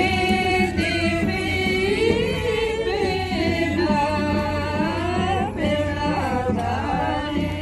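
A group of voices singing together without instruments, the notes held and gliding, over a steady low hum.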